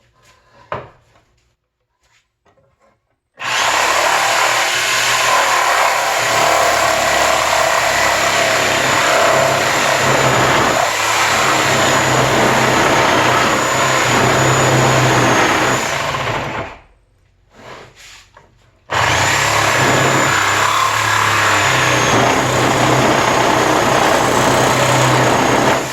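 Reciprocating saw cutting through pallet wood, running in two long stretches: about 13 seconds, a short pause, then again until the end. A few faint knocks come before the first cut.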